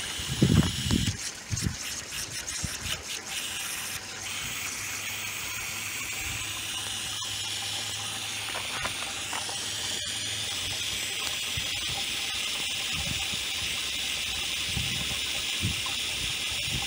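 Garden-hose water running steadily through a venturi siphon mixer setup, an even hissing rush. A few knocks and bumps in the first seconds before the flow settles.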